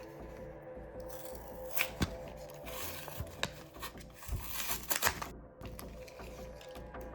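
A Kinder Joy egg's wrapper being torn and crinkled open, with sharp crackles, over soft background music; the crinkling stops abruptly about five seconds in.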